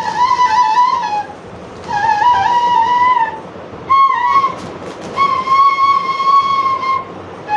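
Small bamboo flute (bansuri) blown in four short phrases of breathy, slightly wavering notes around one pitch, with brief pauses for breath between them; the last phrase is a long held note.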